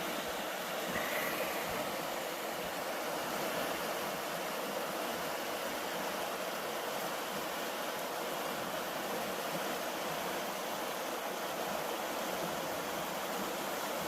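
The Kettle River's moving water rushing steadily, an even, unbroken noise with no let-up.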